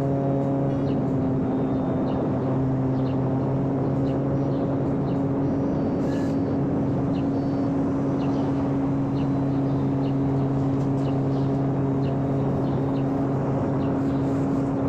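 Electric motor and propeller of a homemade radio-controlled floatplane running at a steady throttle: a constant pitched drone that holds one note.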